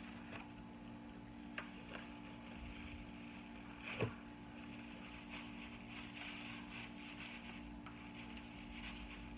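Steady low hum of room noise, with a few faint clicks and one sharper knock about four seconds in as a cardboard eyeshadow palette is handled and closed.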